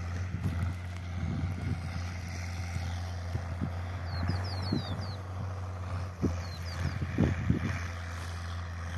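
Distant John Deere 4455 tractor's six-cylinder diesel engine running steadily under load as a low, even drone. Irregular low thumps come and go, and a quick run of high bird chirps sounds about halfway through.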